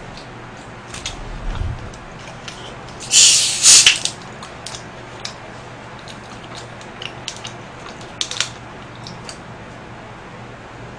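Plastic Coca-Cola bottle cap twisted open about three seconds in, letting out a hiss of carbonation for about a second, followed by a few faint scattered clicks.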